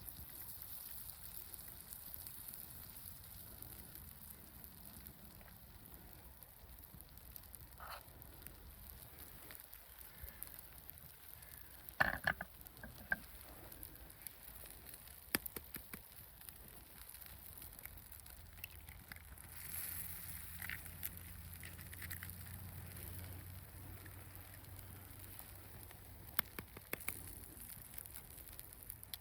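Campfire crackling faintly over a steady hiss, with scattered sharp pops, the loudest in a quick cluster a little before halfway.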